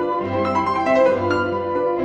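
Instrumental background music led by piano, a steady run of notes.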